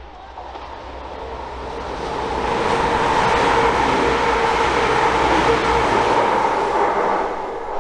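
Class 222 Meridian diesel-electric multiple unit running through at speed: a rushing, droning pass-by that builds over the first few seconds, is loudest for about four seconds as the train goes by, then fades near the end.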